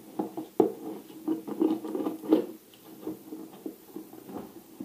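Cardboard parcel and scissors being handled: a string of irregular taps, knocks and rustles as the box is got ready to be cut open.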